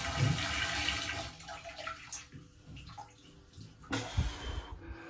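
A rush of water that starts suddenly, holds for about a second and then tails off, with a second, shorter rush about four seconds in.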